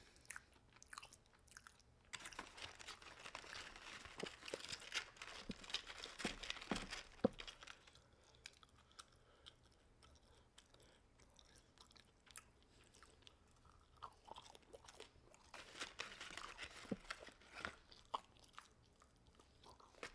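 A person chewing crunchy fried fast food close to the microphone, in two spells of crunching with a quiet pause between.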